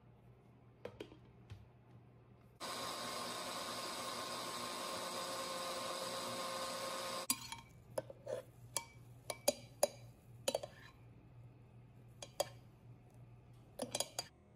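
Countertop blender with a glass jar running steadily for about four and a half seconds, mixing pancake batter, then cutting off suddenly. A metal spoon then stirs the frothy batter, clinking and tapping repeatedly against the glass jar.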